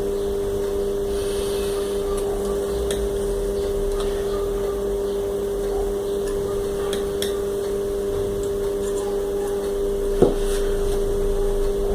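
A steady electrical machine hum, with faint small clicks and one sharper knock about ten seconds in from handling small parts on a workbench.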